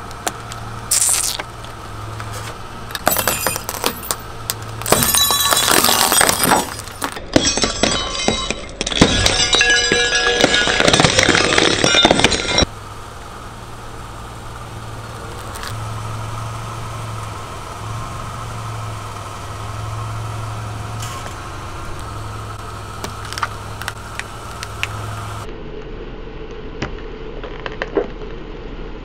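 A car tyre rolling slowly over a series of household items, crushing them one after another with crunching, crackling and popping. The densest, loudest crackling and snapping runs from about three to twelve seconds in. After that comes a quieter stretch of squishing over the car's low engine idle.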